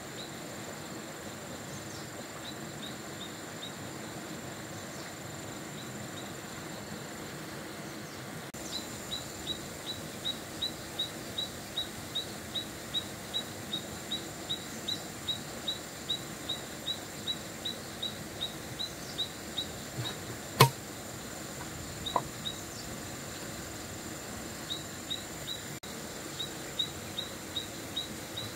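Countryside ambience: a steady high insect drone, joined about a third of the way in by a run of short high chirps repeating two or three times a second, which thin out later. One sharp click about two-thirds through.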